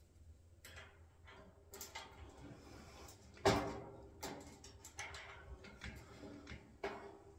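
Faint metallic clicks and knocks of a screwdriver and spanner tightening a nut and bolt on a wheelbarrow's metal tray, with one louder knock about three and a half seconds in.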